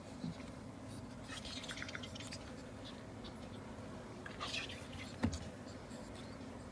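A ferret making short scratchy, rustling noises, two brief clusters of them, with a single sharp knock about five seconds in.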